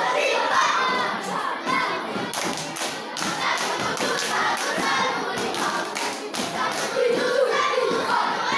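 A group of scout children chanting and singing a yel-yel cheer together, punctuated by frequent sharp claps and thumps from their routine.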